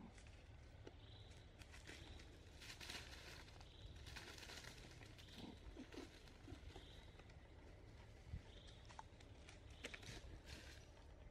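Faint rustling and crinkling of dry fallen leaves stirred by monkeys moving over the leaf litter, with scattered small crackles.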